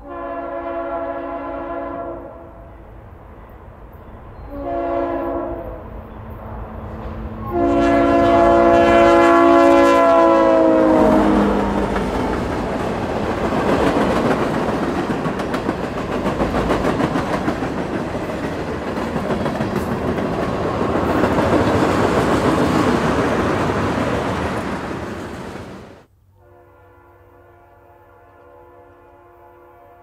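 Leslie RS-3L three-chime locomotive air horn sounding a crossing signal: a long blast, a short one, then a final long one that drops in pitch as the locomotive passes. Freight cars then roll by with loud rail clatter. Near the end another locomotive's RS-3L horn sounds steadily, more faintly.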